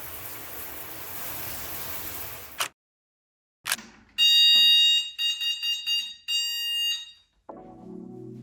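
A loud, high-pitched electronic beeping like an alarm: one long beep about a second long, then four shorter beeps in quick succession. Before it, a steady hiss cuts off suddenly, and a single click follows.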